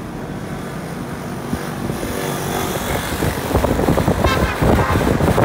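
Motorcycle engine running as the bike picks up speed. Wind buffeting on the microphone grows louder and choppier from just past halfway.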